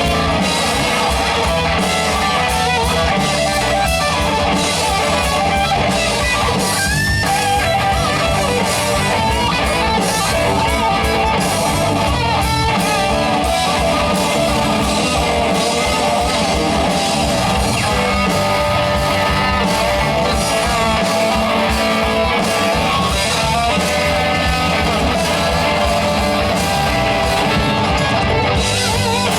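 A rock band playing: guitar over a drum kit, loud and continuous.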